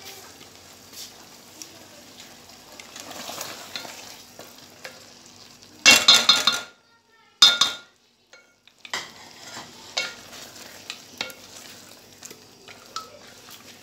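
Spatula stirring and scraping through a thick chicken masala in an aluminium pot, with a low sizzle of frying underneath and small scraping clicks. About six seconds in come two loud, harsh bursts, and the sound drops out entirely twice for a second or so before the stirring resumes.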